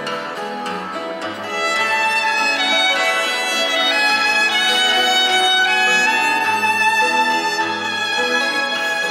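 Violin playing a melody of long held notes over Portuguese guitar and classical guitar accompaniment with a plucked bass line. The violin comes in louder about a second and a half in.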